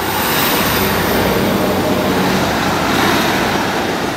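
Class 156 Sprinter diesel multiple unit passing close by: a loud, steady rush of diesel engine and wheel-on-rail noise that swells in the first second and eases slightly near the end.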